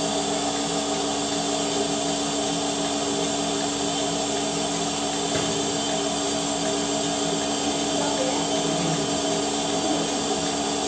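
Portable bucket milking machine running steadily while milking a cow, its vacuum pump giving a constant mechanical drone with a few steady tones.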